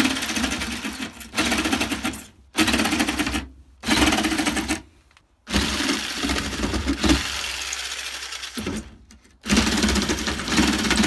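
Corded Black+Decker jigsaw cutting a sheet of plywood, its blade running in five separate runs of about one to three seconds with short pauses between them.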